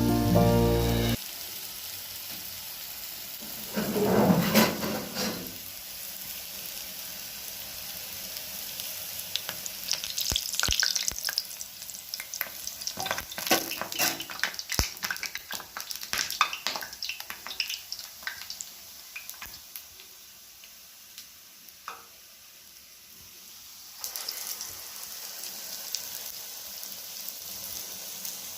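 Food frying in hot oil: a steady sizzle with scattered crackles and pops, with a louder rush about four seconds in. The sizzle dies down for a few seconds in the second half, then picks up again near the end.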